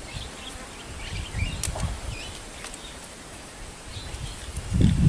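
Short, scattered bird chirps over a low, wavering buzz, which grows loud near the end.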